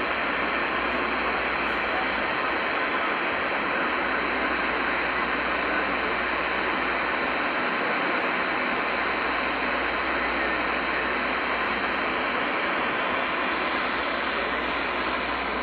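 Steady hiss of band noise from a Uniden PC-122XL CB radio's receiver on channel 38 lower sideband, with no station coming through.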